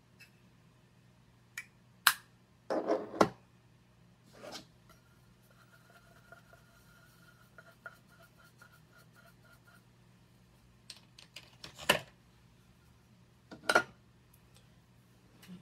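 Makeup products and brushes being handled on a table: scattered sharp clicks and clacks, like compacts and cases being opened, closed and set down. A cluster comes about three seconds in and more come around twelve and fourteen seconds, with quiet room tone between.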